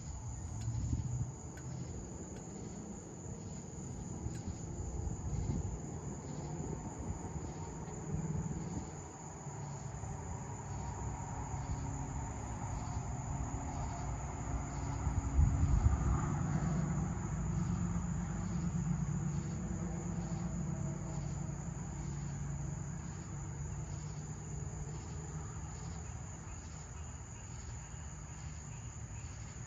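Night insects chirping steadily in a high pulsing chorus, with a low rolling rumble of thunder that swells about halfway through and slowly dies away.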